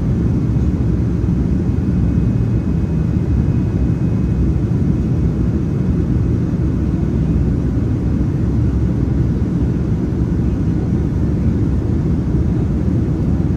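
Steady low cabin roar inside a Boeing 787-9 Dreamliner in flight, the jet engines and rushing air around the fuselage heard from a passenger seat.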